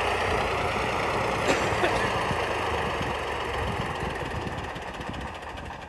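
Farm tractor engine running steadily and slowly growing fainter.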